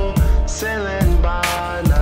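Background song: a pop track with a steady beat of about two kick-drum hits a second, deep bass and held melody notes that glide up and down.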